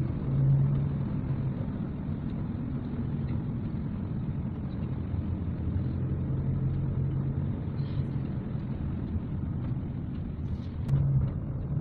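Car engine and tyre noise heard from inside the cabin while driving on a wet road, a steady low rumble with an engine hum that swells briefly near the start, midway and near the end.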